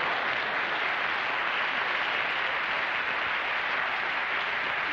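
Studio audience applauding, a steady dense clapping that greets a punchline.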